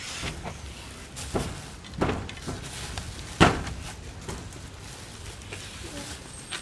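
A few dull knocks and thumps with scuffling between, three main ones about a second and a half, two and three and a half seconds in, the last the loudest.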